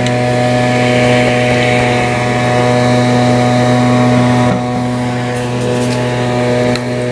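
Steady, loud buzzing hum from a running machine, dropping slightly in level about four and a half seconds in. Under it, a few faint clicks as the siliconed water pump housing on an outboard lower unit is worked loose by hand.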